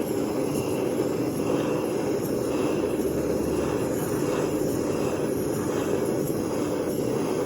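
Jeweller's soldering torch flame running steadily, heating a silver bracelet seam until the hard solder melts and flows.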